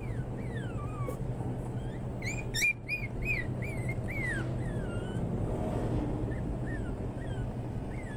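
American Eskimo puppies whimpering and whining, a string of thin high squeals that slide down in pitch, with a quick run of about six sharper yelps about two and a half seconds in, over a steady low hum.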